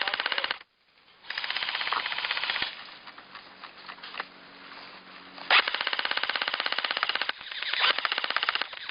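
Airsoft gun firing rapid full-auto bursts, a fast even rattle of shots. The bursts break off for about half a second near the start, and there is a quieter, more irregular stretch in the middle before two more long bursts near the end.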